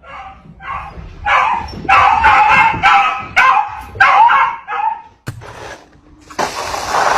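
A dog barking and yipping in a rapid run of short, pitched calls, followed by a brief burst of noise near the end.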